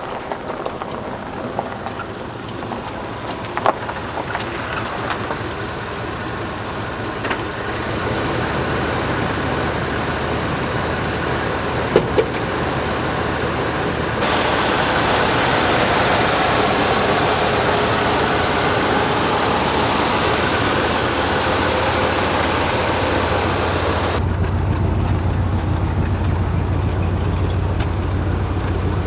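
1980 Cadillac Coupe De Ville with its 368 V8 on the road, engine, tyre and wind noise running smooth and steady after its new intake manifold gasket. The noise turns louder and hissier for about ten seconds midway. There are a couple of sharp knocks early on and about twelve seconds in.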